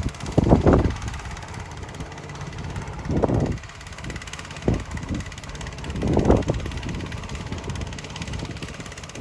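Air compressor running with a steady low hum as it pumps up a tire, with a few short gusts of wind buffeting the microphone.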